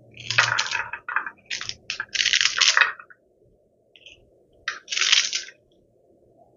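Kitchen knife slicing through a bunch of fresh fiddlehead fern stems on a ceramic plate, in several short cutting strokes with a pause about three seconds in.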